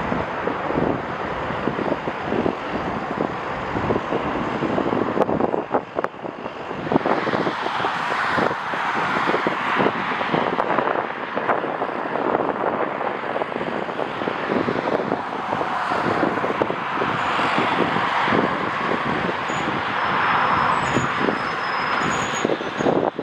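Jet airliner engine noise swelling and fading, with gusty wind buffeting the microphone in many short thumps.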